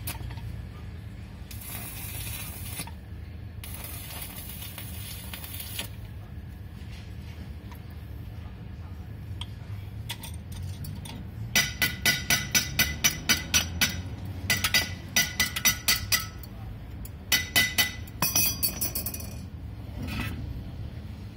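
Metal being struck rapidly with a hammer: runs of sharp, ringing clinks about five a second, in three bursts through the second half. Earlier come two stretches of hissy rasping, like metal being scraped.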